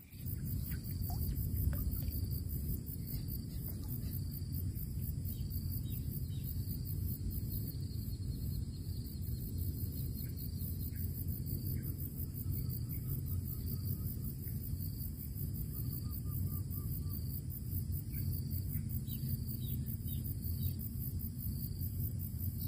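Outdoor ambience at a swamp's edge: a steady low rumble under a constant high insect-like trill, with a few faint bird chirps in the second half.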